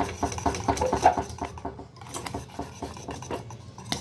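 Wire balloon whisk beating thick pastry cream in a stainless steel saucepan, its wires clicking and scraping against the pot in quick strokes, briefly quieter a little before the middle.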